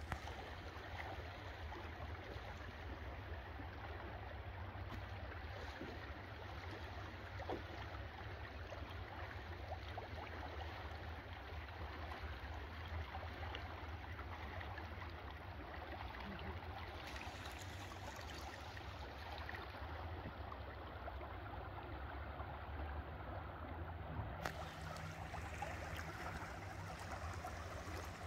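Rushing, swirling water of a strong tidal current, with a steady low hum underneath.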